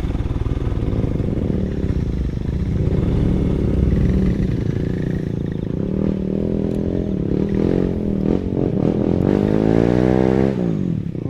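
Motorcycle engine working on a hard off-road climb. It runs steadily at first, then revs up and down repeatedly through the second half.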